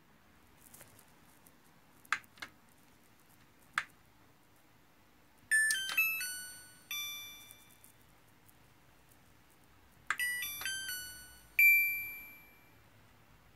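Coway AD-1513A dehumidifier control board, freshly repaired, answering its power button: a few sharp clicks, then two short electronic chime melodies about four seconds apart, each a quick run of beep notes ending on a longer fading tone, as the unit is switched off and on again.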